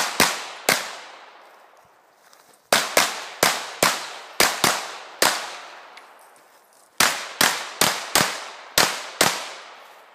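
IPSC Open-division pistol fired rapidly at targets: about sixteen shots in three strings, mostly in quick pairs, with short lulls between strings while the shooter moves between firing positions. Each shot is a sharp crack with a brief echo tail.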